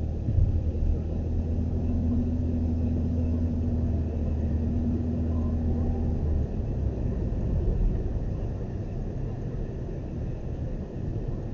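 A car driving, heard from inside the cabin: steady engine and road rumble with a low hum that drops away about six and a half seconds in, and a brief thump near the start.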